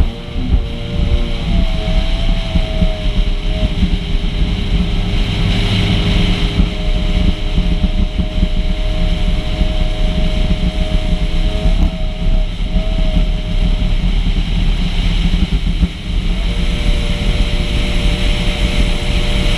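Yamaha two-stroke WaveRunner personal watercraft running at speed, its engine and jet pump holding a steady whine that wavers slightly and steps down in pitch about sixteen seconds in, over wind rushing across the microphone and the hiss of water.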